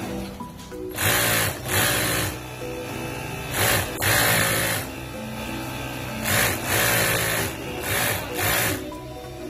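Juki industrial sewing machine stitching in short runs of half a second to a second, eight in all and mostly in pairs, as the fabric is fed and repositioned between runs. Background music plays underneath.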